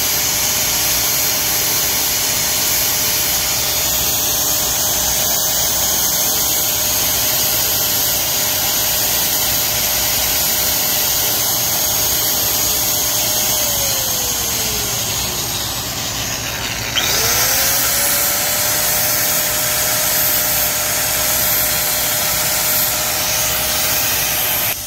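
A power tool motor runs steadily with a loud rushing noise and a steady whine. About fourteen seconds in, the whine slides lower over a few seconds, then snaps back up to its pitch near seventeen seconds.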